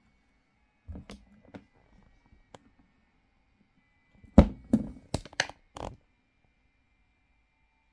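Hands handling a plastic action figure on its round display stand as it is turned: a few light clicks about a second in, then a quick run of sharper knocks and clicks about four and a half seconds in, the first the loudest.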